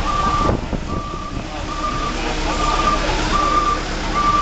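Ingersoll Rand road roller's backup alarm beeping steadily at one pitch, a little more than once a second, signalling that the roller is reversing. Under it, the roller's diesel engine is running.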